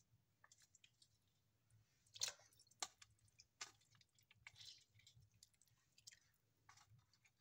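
Raw chicken pieces being put by hand into water in a metal pot: a few faint, short wet plops and squishes, spread over several seconds.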